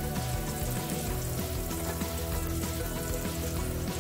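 Chopped onions sizzling as they fry in oil in a pan, under steady background music.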